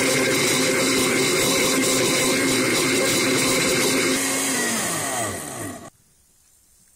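Electric blender motor running steadily at high speed, then switched off about four seconds in, its pitch falling as it spins down and stopping just before six seconds.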